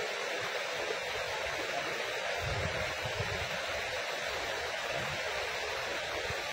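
Steady rushing of river water, with dull low rumbles in the middle.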